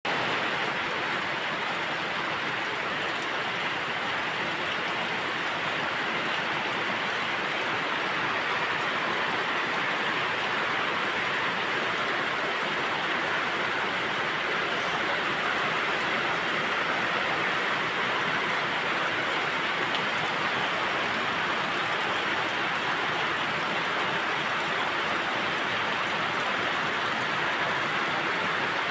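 Rain falling in a steady, even hiss that holds the same level throughout.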